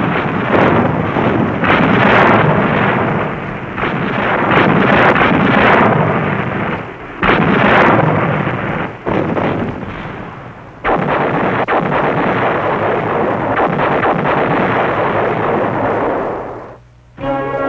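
Naval gunfire: a warship's deck guns firing a run of heavy blasts, a second or two apart, mixed with shells bursting on the shore. Past the middle it becomes one long rumble of gunfire and explosions that cuts off suddenly near the end.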